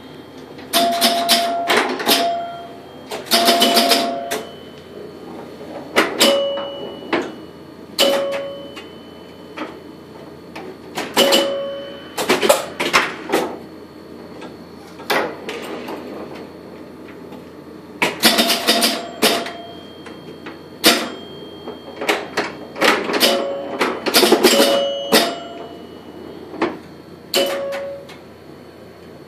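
1976 Bally Hang Glider electromechanical pinball machine in play: bursts of clacking from flippers, bumpers, relays and score reels every few seconds, many of them with chime bells ringing short tones as points score.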